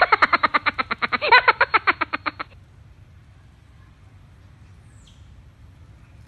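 Rapid, rhythmic "ha-ha-ha" laughter that stops abruptly about two and a half seconds in, leaving a low outdoor background with a brief high chirp near the end.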